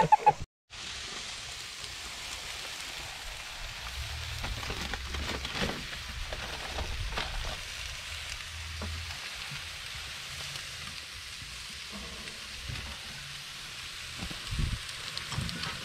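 Chicken and steak kebabs sizzling on foil on a barbecue grill: a steady hiss with faint crackles.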